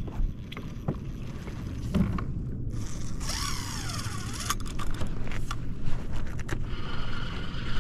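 Spinning reel's drag buzzing in rasping runs as a hooked fish pulls line off, with its pitch wavering, mixed with a few knocks of gear against the kayak.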